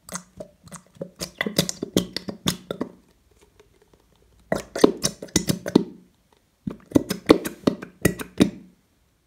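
Plastic squeeze bottle of Elmer's clear glue sputtering and crackling as it is squeezed, glue and air spurting from the nozzle in three bursts with short pauses between.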